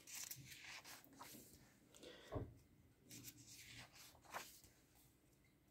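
Faint rustling of paper as coloring-book pages are turned by hand, several soft rustles with the loudest about halfway through.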